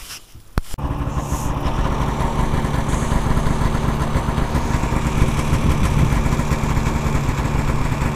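Snowmobile engine idling steadily. It comes in abruptly under a second in, after a couple of sharp clicks.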